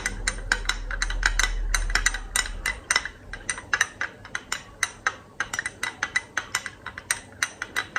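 A metal spoon stirring liquid in a glass tumbler, clinking rapidly against the glass, about five clinks a second. A low hum sits under the first three seconds.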